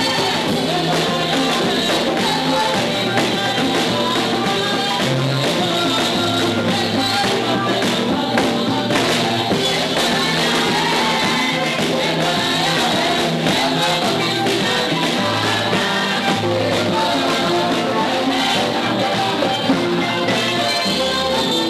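Live gospel worship music: a group of women singing together into microphones, backed by keyboard, bass and percussion with a steady beat.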